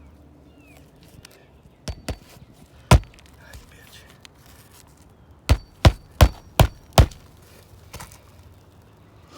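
Hammer blows on a shingle roof: a few separate strikes, then a run of five at about two or three a second, then one lighter tap near the end.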